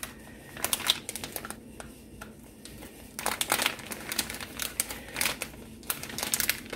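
Plastic packaging of ultra-thin Swiss cheese slices crinkling in irregular bursts as the slices are peeled out of the pack, busiest from about three to six seconds in.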